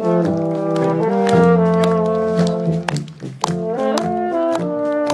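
A small brass band with tubas playing a tune in held chords, with a brief pause about three seconds in before the chords come back.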